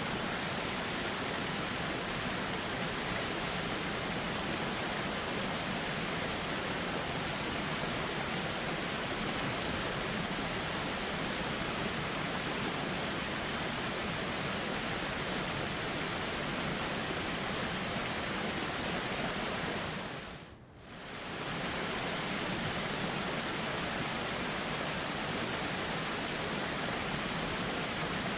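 Steady rush of a flowing river, an even hiss of running water with no separate events. It fades out briefly and comes straight back about two-thirds of the way through.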